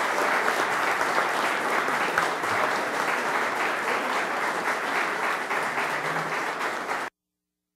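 Audience and head-table panel applauding, a steady dense patter of many hands clapping that cuts off abruptly about seven seconds in.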